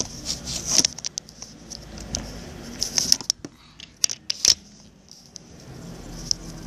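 Metal mesh strainer holding graham cracker crumbs being handled: irregular light clicks and short scratchy rustles.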